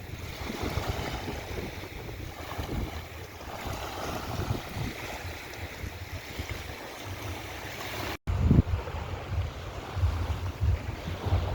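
Mediterranean surf washing onto a beach, with wind gusting on the microphone as a low rumble. The sound drops out for an instant about eight seconds in, and the wind rumble is stronger after it.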